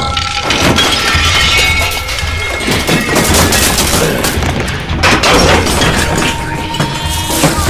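Dramatic background music with a steady low beat, cut through by several crashing, smashing impacts.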